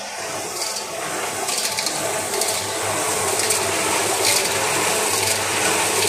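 Mini concrete mixer running: the 2 HP single-phase electric motor hums as the drum turns, and wet concrete mix sloshes and churns inside, with a swish roughly once a second as it tumbles.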